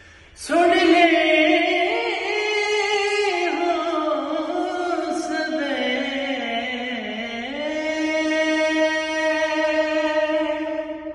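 A man singing a Sikh shabad unaccompanied, one long drawn-out melodic phrase that starts about half a second in, dips in pitch about two-thirds through, then rises to a held note that fades near the end.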